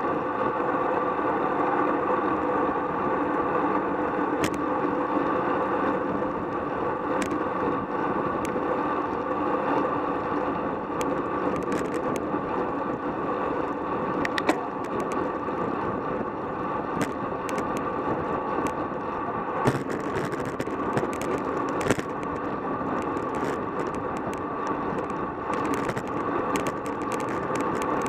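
Steady rush of wind and road noise from a road bike moving at racing speed, around 23 to 28 mph, heard from a camera mounted on the bike. Scattered sharp ticks and clicks cut through, more often in the second half.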